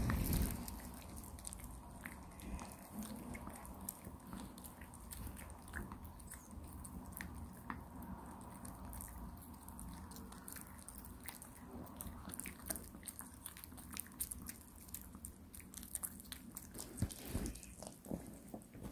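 Maltese dog gnawing a hard stick chew treat: an irregular run of small crunching clicks and bites, with a few louder knocks near the end.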